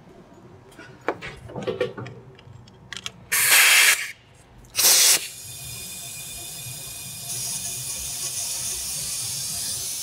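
Compressed shop air from a 100 PSI regulator. First a few light clicks of the fittings being handled, then two short, loud blasts of air about three and a half and five seconds in. After that comes a steady hiss as air flows through the leak-down hose into the cylinder, a little louder from about seven seconds on.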